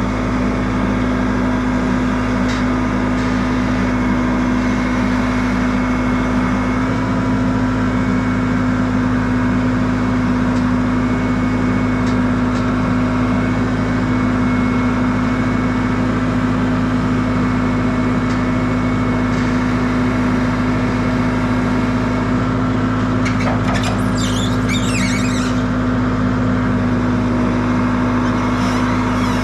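Wood-Mizer LT15 Wide sawmill's engine running steadily. A brief rasping noise comes about 23 seconds in.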